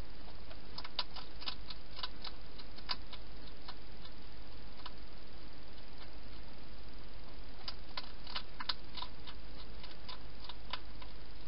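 Wild hedgehog eating inside a plastic feeding box: irregular sharp clicks and crunches in two runs, one about a second in and another from about eight seconds, over a steady hiss.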